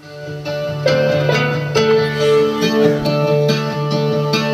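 Recorded music played through a home-built class B audio amplifier, with 2N3055 and 2955 power transistors driven by a 741 op-amp, into a boxed loudspeaker. It starts suddenly at the outset, with sharp note attacks over a steady low tone. The output stage is running with zero bias (no quiescent current).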